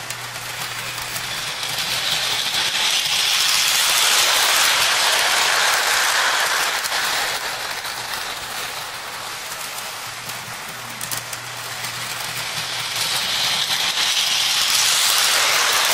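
Lionel O-gauge 4-4-2 steam locomotive and freight cars running on the track loop, a steady rolling rumble of wheels and motor over a low electric hum. It grows louder twice as the train comes round past the bridge, and fades in between while it is on the far side of the loop.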